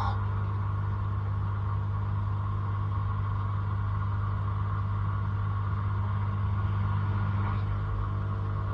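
Blanco dishwasher running mid-cycle: a steady low hum from its wash pump, with a faint even wash of spraying water over it.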